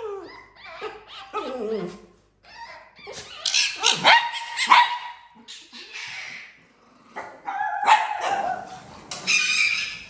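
Small dogs barking and yipping in loud bursts, with falling whines in the first couple of seconds.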